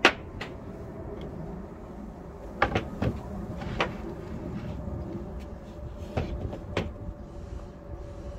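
Several sharp wooden knocks and bumps as a bamboo mixing bowl and a round wooden chopping board are moved about on the worktop. The loudest knock comes right at the start, then a quick cluster about two and a half to three seconds in and two more near the end, over a steady low background rumble.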